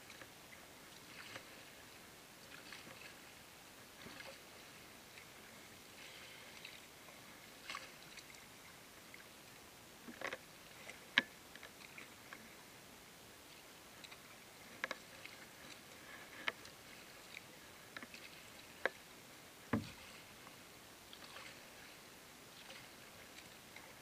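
Faint water splashing and lapping against a plastic sit-on-top kayak. Between about ten and twenty seconds in come several sharp ticks and knocks on the hull, the last and deepest a dull thud.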